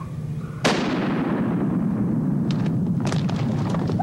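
A single shotgun blast fired at a turkey gobbler, with a long echoing tail through the woods. Near the end come quick rustling and crunching clicks as the hunter runs through the dry leaves toward the downed bird.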